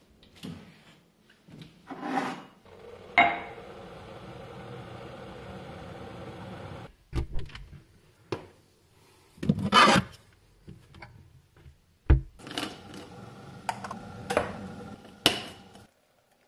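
A string of kitchen sounds while making instant coffee: a cupboard door, knocks and clinks of crockery and utensils, and stretches of steady rushing noise. Near the end, hot water is poured from an electric kettle into a mug.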